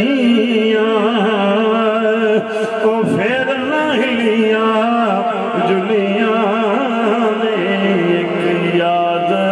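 A man singing a Punjabi devotional verse in long, wavering melismatic phrases over a steady held tone.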